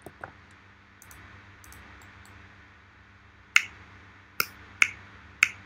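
Four sharp, unevenly spaced clacks, the recorded 'click clack' sound played back from Blender's timeline. They start about three and a half seconds in, after a faint click at the start.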